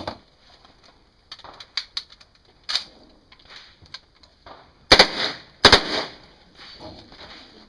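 H&K MP5 submachine gun firing at a match stage: a few fainter single cracks early on, then two loud short strings of shots a little under a second apart about five seconds in, each followed by a short echo.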